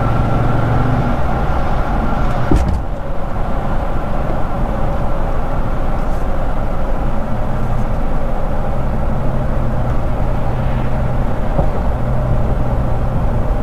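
2016 GMC Sierra's 5.3-litre V8 running at a steady cruise, heard inside the closed cab through a Thrush welded muffler with the resonator removed: a steady low exhaust hum over road noise, with no drone. A single short thump comes about three seconds in.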